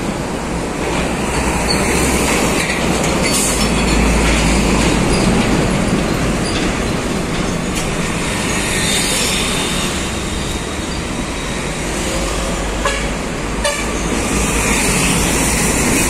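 Steady traffic of heavy diesel trucks, including container tractor units, and motorbikes driving past close by: engines and tyre noise blend into one continuous road rumble.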